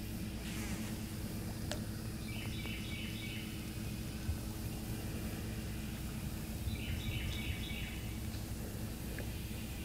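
A songbird singing a short phrase of rapid, high chirping notes, twice, over a steady low hum of outdoor ambience.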